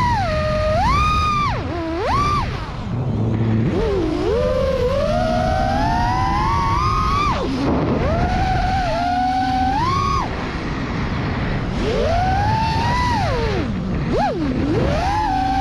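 Brushless motors and propellers of a 5-inch FPV freestyle quad (ImpulseRC Apex on Silk v2 motors) whining, the pitch swooping up and falling away sharply again and again as the throttle is punched and chopped through the moves, over a steady rushing noise.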